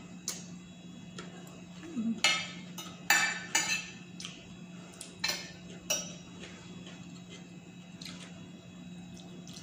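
Metal spoon and fork scraping and clinking against a ceramic plate while scooping up rice: a few rattling scrapes about two to four seconds in, then two single clinks.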